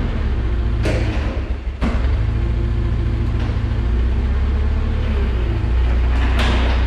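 Nissan forklift's engine running steadily with a low rumble, with two sharp knocks about one and two seconds in.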